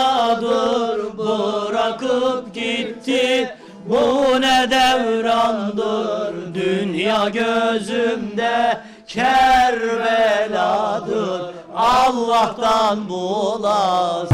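A male voice singing a slow, ornamented Urfa folk vocal line with wavering pitch, pausing for breath about four and nine seconds in.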